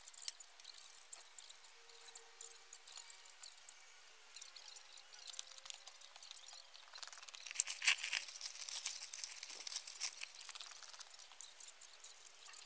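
Faint, scattered clicks and clinks from the metal camera crane being handled and fitted together, with a louder cluster of knocks about two-thirds of the way through.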